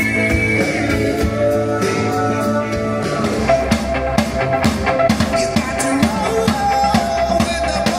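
Loud rock music with guitar. Held chords ring for the first few seconds, then a drum kit comes in about three seconds in with rapid, busy hits over the guitar.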